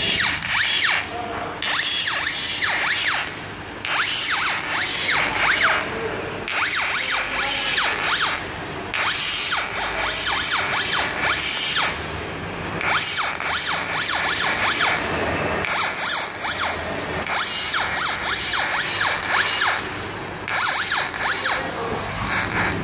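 Laser cutter's stepper motors whining in quick rising and falling sweeps as the cutting head moves along curved cut paths, over a steady hiss.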